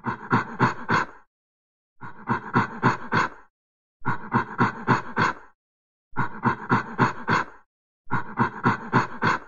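Monkey calls: a quick run of four or five harsh, pulsed cries, repeated five times about every two seconds with silence between, each repeat the same as the last.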